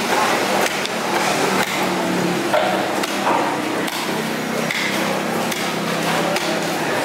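A knife chopping into a large fish on a wooden chopping block, sharp knocks about once a second, over steady background noise.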